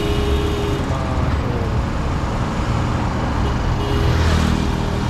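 Hanoi Metro Line 2A electric train running, heard from on board: a steady low rumble, with a whine that fades about a second in and returns about four seconds in.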